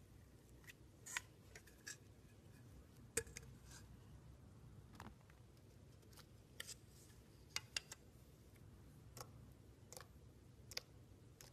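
Fingers pressing, squeezing and folding soft glossy slime, giving about a dozen faint, irregular sticky clicks and pops.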